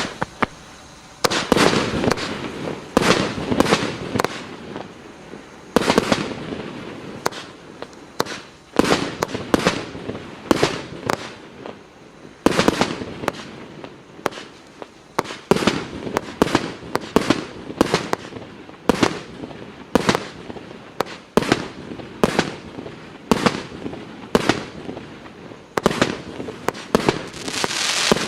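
FP-B354 multi-shot firework cake firing: a quick run of small pops in the first second, then a steady sequence of loud shots, about one to two a second, each followed by crackling.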